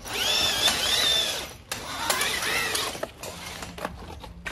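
Electric core drill motor whining under load as the bit cuts through a brick wall, its pitch rising and falling as the load changes. It eases off about a second and a half in, picks up again, and drops away around three seconds in.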